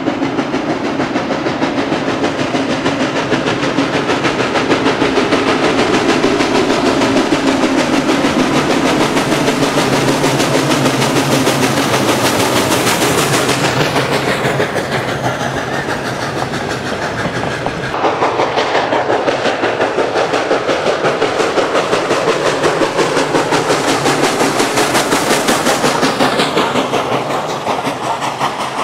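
Ex-Canadian Pacific steam locomotive and its open-air passenger cars passing close by, wheels clicking over the rail joints in a fast, even rhythm. The sound changes abruptly about two-thirds of the way through.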